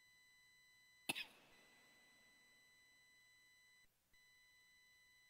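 Near silence over a faint, steady high electronic whine that cuts out briefly a little before four seconds in. About a second in comes a single sharp knock with a short ringing tail.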